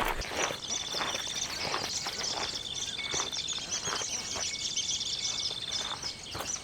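Outdoor nature chorus of high chirping animal calls, with a steady high trill repeating in stretches of about a second, over scattered light taps.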